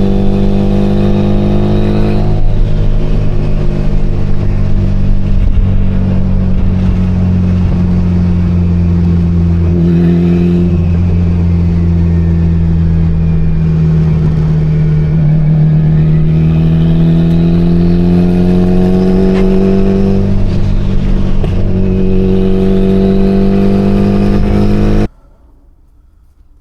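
Mitsubishi Lancer Evolution IX's turbocharged 4G63 four-cylinder engine running as the car is driven, its pitch rising and falling slowly as the revs change. The sound cuts off suddenly near the end.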